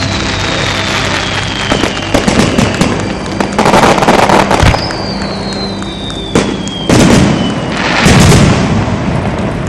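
Starmine fireworks barrage: shells bursting in quick succession with sharp bangs and dense crackling, the loudest bursts near the end. Two long falling whistles from whistling shells, one at the start and one about halfway through.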